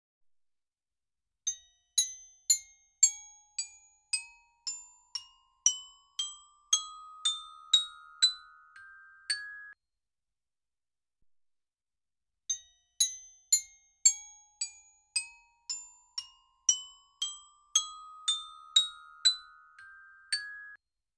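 Glockenspiel playing a rising run of about sixteen ringing notes, about two a second. The run is heard twice with a short pause between, as a listening-test sample played back through two different op-amps in a headphone amplifier kit.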